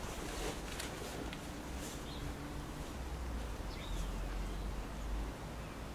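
Outdoor ambience: a few faint bird chirps over a low, steady rumble.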